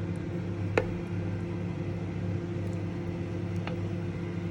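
Steady low hum of a running machine or appliance, with a single sharp click a little under a second in.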